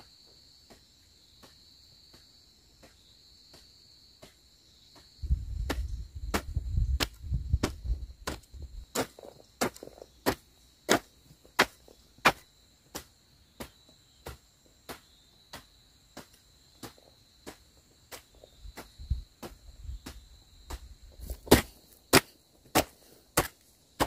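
A hoe chopping into damp clay soil in a steady rhythm, about one and a half strokes a second. The strokes are faint at first and sharp and close from about five seconds in. Crickets chirr steadily behind.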